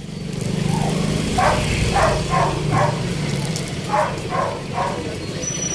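A dog barking seven times in two quick runs, four barks then three, over the steady low rumble of street traffic.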